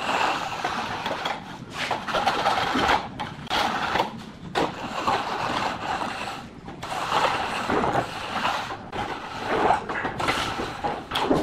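Hollow metal straightedge being drawn back and forth over a freshly poured wet concrete countertop, scraping along the edge forms and sliding through the wet concrete in uneven, repeated strokes.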